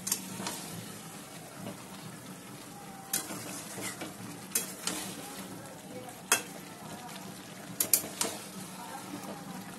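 Chicken pieces and spice paste sizzling in oil in a metal kadai as a spatula stirs them, with sharp knocks and scrapes of the spatula against the pan every second or two. The masala is being fried down for the curry.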